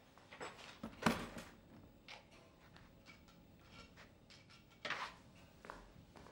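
Faint scattered knocks, clicks and rustles of someone handling things and moving about in a small room. The loudest cluster comes about a second in, with another sharp knock just before five seconds.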